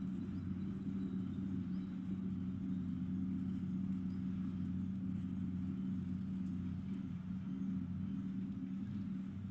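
A steady, low mechanical hum that holds one pitch throughout.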